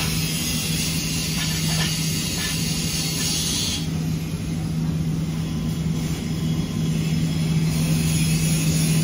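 Steady motor hum with a hiss over it, even in level throughout; the higher hiss thins out about four seconds in.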